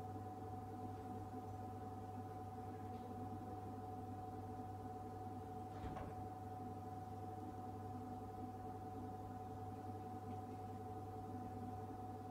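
Cold-drink vending machine humming steadily: a low drone under a steady higher whine, with a faint click about six seconds in.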